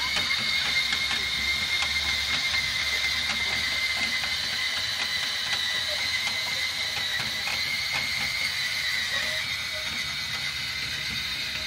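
Travel trailer's scissor stabilizer jacks being retracted by an electric motor: a steady motor whine with gear noise and faint ticking as the jacks fold up.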